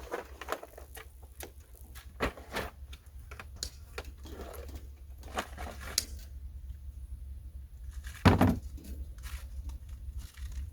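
Irregular light clicks and knocks, with one heavier thump about eight seconds in, over a steady low hum.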